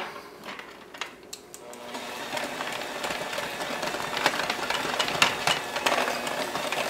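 A few light clicks, then about two seconds in an electric hand mixer starts and runs steadily, its beaters churning a stiff mashed potato and flour mixture in a glass bowl with many small rattling clicks. The motor is working harder as the mixture stiffens with the added flour.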